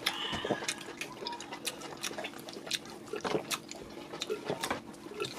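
Close-miked wet chewing and mouth clicks from eating fufu with egusi soup, with soft squelches of the fufu being worked by hand in the soup. The clicks come irregularly, several a second.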